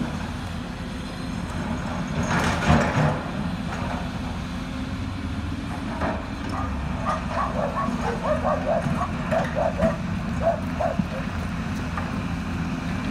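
Dogs barking in a run of short barks from about six to eleven seconds in, over a steady low engine rumble. There is a louder burst of noise about two and a half seconds in.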